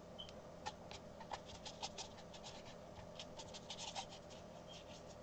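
Quick, scratchy strokes of a Chinese calligraphy brush dabbed and dragged across rough cold-press watercolour paper, about a dozen and a half short scrapes in three and a half seconds, laying in a dark area.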